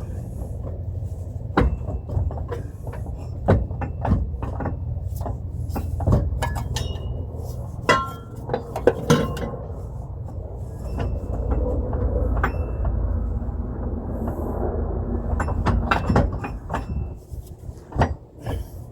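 Scattered metal clunks, knocks and scrapes as a front differential is shifted and worked down past the subframe, a few with a short ring, over a steady low rumble.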